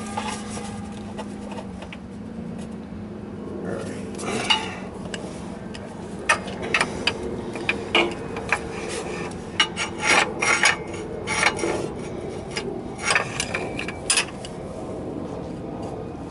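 Steel socket extensions and a breaker bar clinking and knocking as they are handled and fitted together against the car's underside: a string of irregular sharp clinks from about four seconds in, over a low hum that fades at about the same time.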